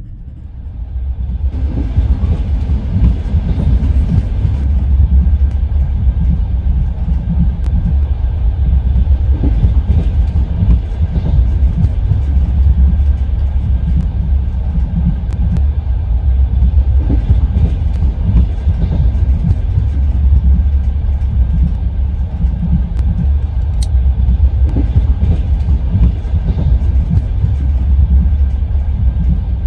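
Passenger train wheels clattering over the rails while the train is moving, over a steady low rumble of the carriage.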